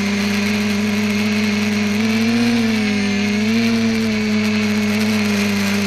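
ETFD2 flying-disc multicopter's electric motors and propellers humming steadily, recorded by a camera mounted on the craft in flight. The pitch rises a little twice, about two and about three and a half seconds in.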